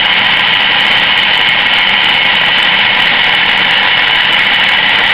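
Centre lathe running steadily with a constant mechanical whine while the tool takes a cut along a spinning metal bar, turning it down to diameter.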